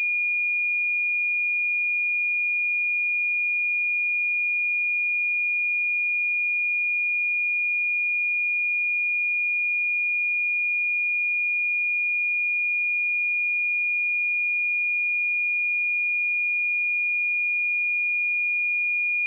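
Pure 2432 Hz sine-wave test tone, held at one steady pitch and level without a break.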